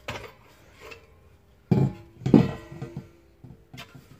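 Metal knocks from handling a portable gas heater head with a chrome reflector and wire guard: a click at the start, then two clanks about two seconds in. The second clank leaves a ringing tone that lasts over a second.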